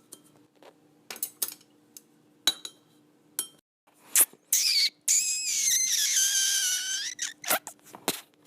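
A few light clicks and taps, then a loud, high squeak about two and a half seconds long that sags a little in pitch, with more clicks after it.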